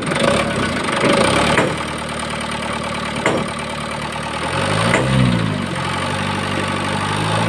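Mitsubishi 4D34T four-cylinder turbo-diesel running with a knocking noise, briefly revved up and back down about five seconds in. The mechanic first diagnosed the knock as a connecting rod bearing, but the bearings turned out to have good clearance.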